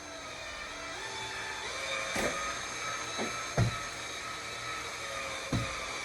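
Cordless drill/driver motor running steadily as it drives a screw, its whine shifting in pitch a little as the trigger is worked. A few sharp knocks come through the whine.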